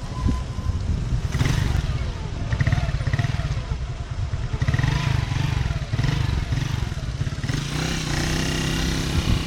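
A motor vehicle's engine running with a heavy low rumble, settling into a steadier engine note near the end.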